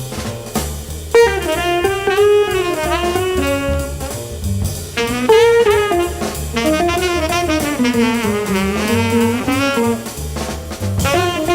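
Jazz music: a saxophone playing a melody with vibrato, over bass and a drum kit.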